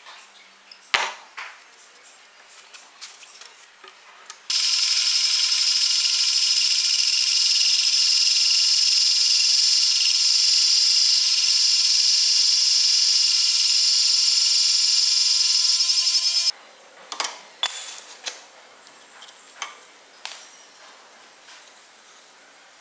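Drill press driving a bi-metal hole saw through a steel plate: a loud, steady, high-pitched screech that starts about four and a half seconds in, lasts about twelve seconds and cuts off suddenly. Light clicks come before it, and a few metal clinks follow as the cut-out steel disc is handled.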